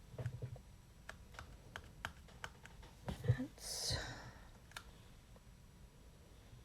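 Scattered light clicks and taps, a few a second, for about three seconds, then a brief breathy word.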